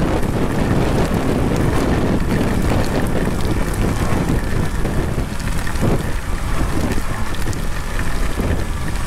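Loud, steady wind buffeting on the microphone of a motorcycle-mounted action camera while riding through heavy rain, with the motorcycle's engine and rain spray mixed in underneath.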